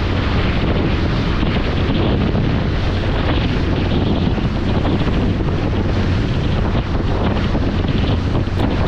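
Steady wind buffeting the microphone aboard a fast-moving motorboat, over the constant low drone of its engine and the rush of water from the wake.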